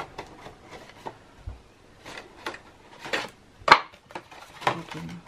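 Cardstock box and lid being handled on a craft table: a string of light paper rustles and soft taps as the lid comes off, with one sharp knock about two-thirds of the way in.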